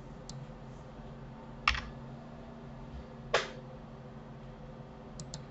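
Computer keyboard and mouse clicks: two distinct clicks about a second and a half apart, with a few fainter ticks, over a faint steady hum.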